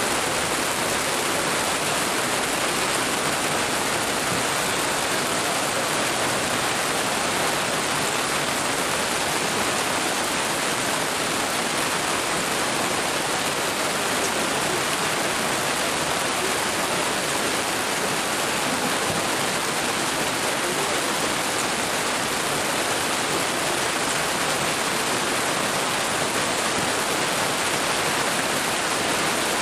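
Heavy rain pouring down steadily, a dense even hiss of a downpour.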